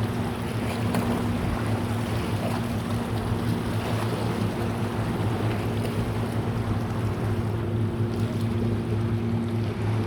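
Boat engine running at a steady speed, a constant low hum with wind and water noise over it.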